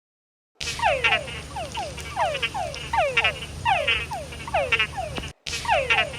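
Animal calls: a run of short squeals that fall in pitch, about two a second, over a low steady hum. The recording breaks off briefly a little after five seconds and starts again.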